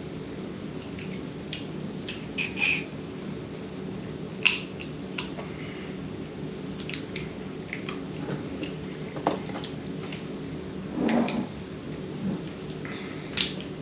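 Boiled crawfish and crab shells being cracked and picked apart by hand, with scattered small clicks, crackles and wet eating sounds over a steady low hum.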